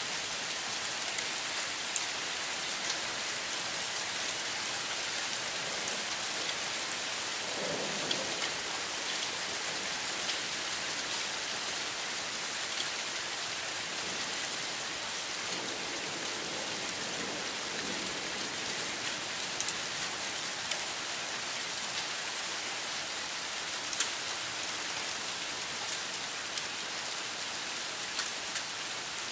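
Heavy rain pouring steadily in a severe thunderstorm, with scattered sharp drop ticks. Two faint rumbles of thunder come through, about eight seconds in and again around sixteen to eighteen seconds.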